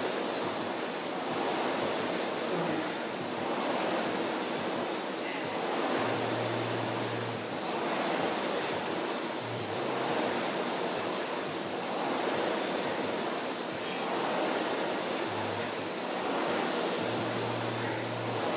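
Concept2 rowing machine's air-resistance flywheel whooshing, swelling with each drive stroke and fading on the recovery, about one stroke every two seconds.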